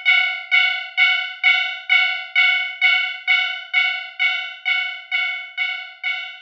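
Japanese railroad-crossing warning bell, the electronic 'kan-kan' tone, ringing steadily at about two strikes a second; each strike is a bright pitched ding that fades before the next.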